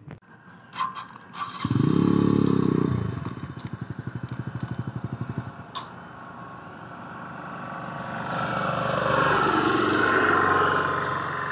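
Motorcycle engine: a loud burst of revving about two seconds in, then an even putt-putt idle that fades, then the engine noise swells again near the end.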